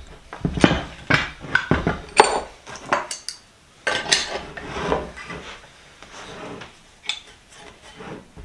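Metal tools and parts of a Powercraft bench vise being handled as it is taken apart: an irregular string of sharp clanks and clinks, some ringing briefly.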